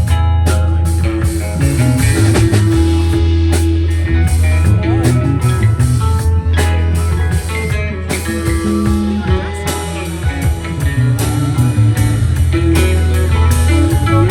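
Live rock band playing an instrumental passage: electric guitar lines over steady bass and drums.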